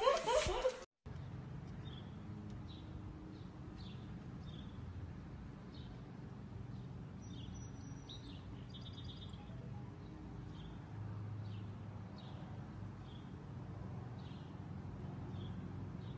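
Faint outdoor ambience: small birds chirping now and then, short high chirps every second or so, over a low steady rumble.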